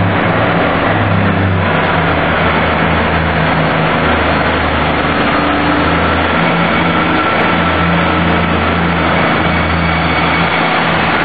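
Diesel multiple unit's underfloor diesel engines running steadily as the train moves along the platform past the listener, with a constant low engine note over rumbling noise.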